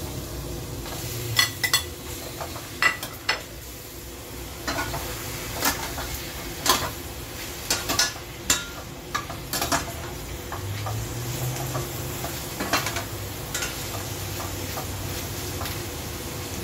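A spatula scraping and clinking against a stainless steel pot while stirring sliced pig stomach and chicken, in irregular sharp clinks that mostly fall in the first two-thirds. Underneath, the meat sizzles steadily in the pot.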